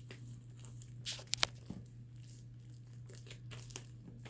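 Putty being squeezed and pulled apart on the hands: faint sticky crackling and tearing, with a couple of sharp clicks about a second and a half in.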